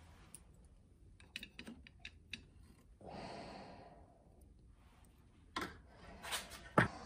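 Steel tongs clicking as a red-hot cupel is set down on a steel plate: a scatter of light clicks, a soft rushing sound about three seconds in, and a few louder clacks near the end, the last one the loudest.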